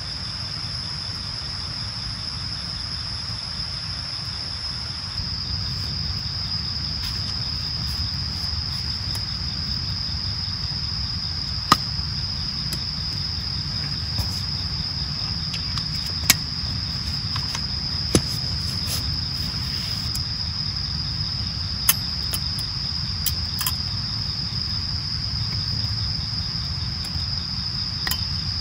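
Steady, unbroken high-pitched insect chorus in the forest, with a few sharp clicks scattered through it, the loudest about twelve and sixteen seconds in.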